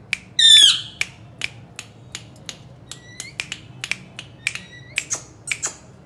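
Indian ringneck parakeet giving one short, loud squawk about half a second in, followed by a run of quick clicks and brief chirps, about three or four a second.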